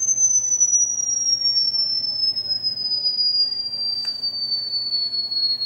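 A high-pitched electronic sine tone played back through a speaker: one pure whistle-like note gliding slowly and steadily down in pitch. A faint click about four seconds in.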